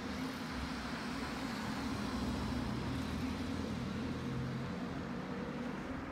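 A car driving past on the street, its engine and tyre noise swelling and then slowly fading.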